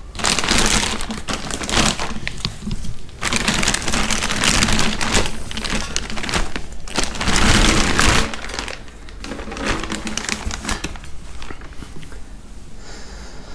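Clear plastic bag crinkling and rustling as a stainless steel exhaust header is worked out of it. The crinkling is loud for about the first eight seconds, then gives way to fainter, scattered handling noises.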